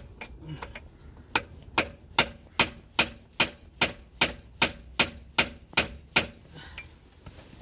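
Hammer striking metal: a run of about a dozen evenly spaced blows, roughly two and a half a second, each with a short metallic ring. The blows are driving a stuck car drive shaft out of the gearbox.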